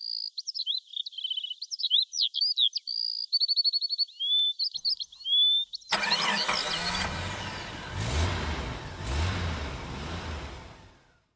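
Songbirds singing a rapid run of varied chirps and trills. About six seconds in, the birds stop as a car engine cuts in, revs up twice and fades away.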